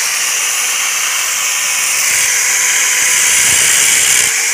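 Electric angle grinder with a cut-off disc cutting through a small steel plate held in locking pliers, a steady, loud, hissing grind of disc on metal.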